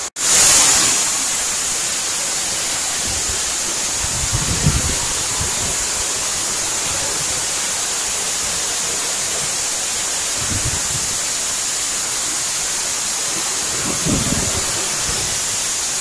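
Waterfall pouring and splashing into its pool close by: a steady rushing hiss with no pauses. A few brief low rumbles rise out of it now and then.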